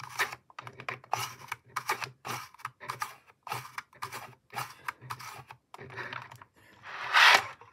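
The small plastic sliding door of a Bachmann model boxcar being slid back and forth by a fingertip: a string of short scraping rasps, about two a second, with one longer, louder rasp near the end.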